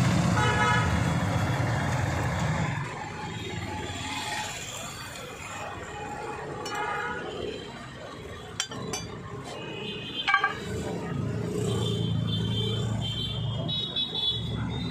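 Street traffic: a passing vehicle engine rumbles, with short horn honks around the start and again about seven seconds in, and a few sharp clicks a little past the middle.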